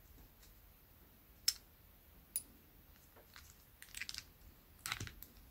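Parts of a Daiso spinning reel being handled during disassembly, clicking lightly: two sharp clicks about a second apart, then two short bursts of small rattling clicks near the end.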